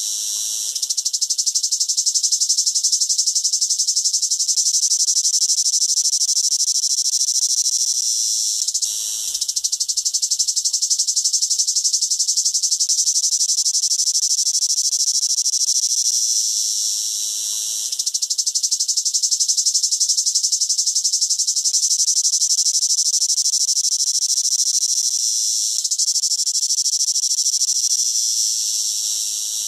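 Cicada singing: a loud, continuous high-pitched buzz that eases off briefly about every eight or nine seconds, near 9 s, 17 s and again near the end, then swells back.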